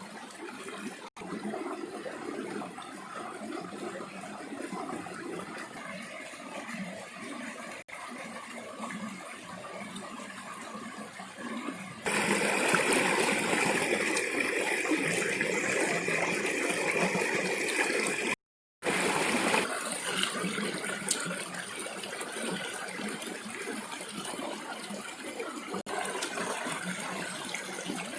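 Steady rushing of running water, broken by a few abrupt cuts, with a louder stretch in the middle.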